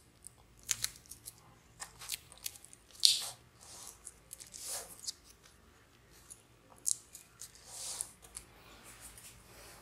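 Irregular small clicks and crinkling rustles of tape and thin plastic film pressed down by a thumb along the edge of a laptop screen's LED backlight strip. Three longer rustles stand out, about three, five and eight seconds in.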